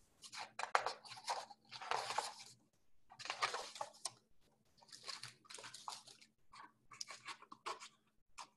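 Rustling of a picture book's glossy cover and paper pages as it is opened and its pages are turned, in a string of short irregular bursts, over a faint steady low hum.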